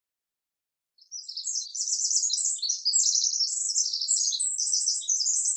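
Songbird twittering: a dense run of rapid, high-pitched chirps that starts about a second in and continues without a break.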